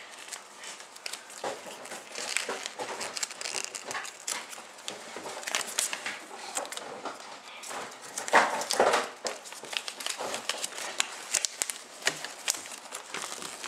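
Printed packet of a toy set being crinkled and worked open by hand: a continuous run of crackling and rustling, louder for a moment a little past the middle.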